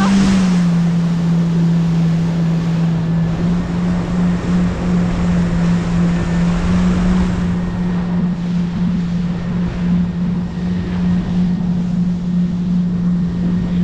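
Jet ski engine running at a steady pitch over rushing water, with wind noise on the microphone.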